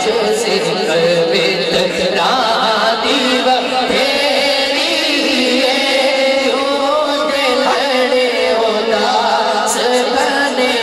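A man singing a Punjabi naat into a microphone, in long, wavering held notes, amplified through a sound system.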